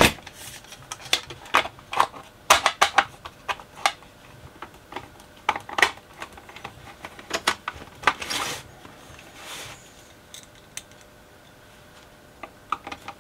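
Sheet-metal cover of a switch-mode power supply being fitted and screwed down: irregular clicks and taps of metal and a screwdriver, with a brief scrape about eight seconds in.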